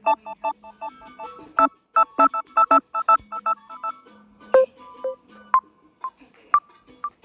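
Samsung Galaxy A12 ringtone playing: a quick run of short electronic notes, about six a second, then from about four seconds in, slower single notes, about two a second, each with a short ringing tail.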